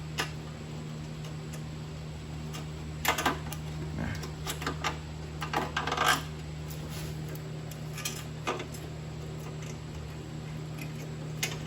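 Light metallic clicks and clinks of a mower's self-propel cable and its hook end being handled and fitted onto the drive parts, in scattered groups that are busiest from about three to six seconds in, over a steady low hum.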